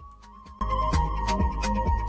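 Background music with a steady beat starting suddenly about half a second in, after a brief quiet gap.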